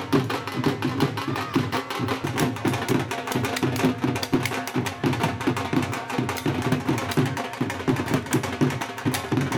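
Dhol drums played live in a fast, steady, driving rhythm of rapid strokes.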